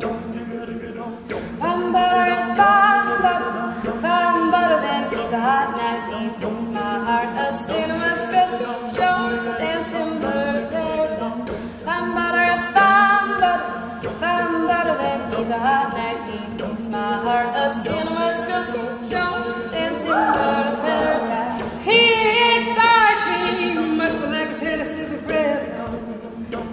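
Mixed-voice a cappella group singing, the lower voices holding steady sustained notes under a moving lead melody, with sharp clicks throughout.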